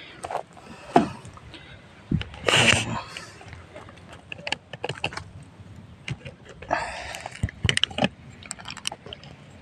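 Footsteps and rustling on dry leaf litter and twigs, many small irregular clicks and crackles, with louder brief bursts about two and a half and seven seconds in.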